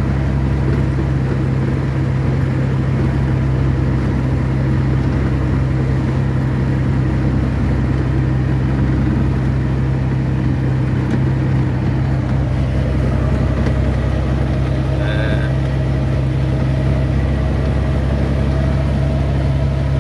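Engine and road noise heard inside a truck cab while driving: a steady low hum under an even rumble, with no change in speed or gear.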